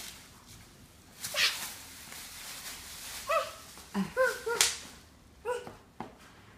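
Bubble wrap crinkling in a few short bursts, with a young child's short high squeals in between.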